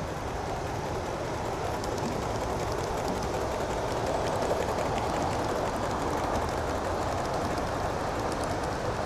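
Gauge 1 live steam locomotive hauling a train of coaches past, with a steady rushing hiss and light rapid ticking from its running. It grows louder to a peak about four to five seconds in as it passes closest.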